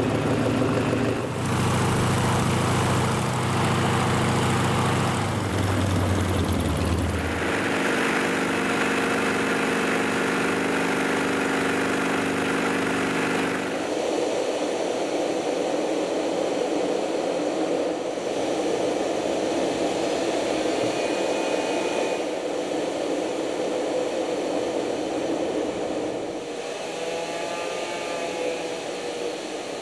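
A small propeller aerobatic plane's piston engine runs with a steady low hum, its tone shifting about seven seconds in. About fourteen seconds in this gives way to the steady rushing noise of jet trainers' engines in flight, with a faint gliding tone near the end.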